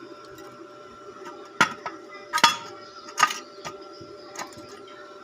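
Metal clinking and knocking, as of tools on metal parts: three louder knocks a little under a second apart, then a few lighter taps, over a steady faint hum.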